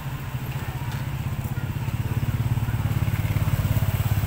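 Small motorcycle engine running close by, a steady low drone with rapid pulses that gets louder over the second half.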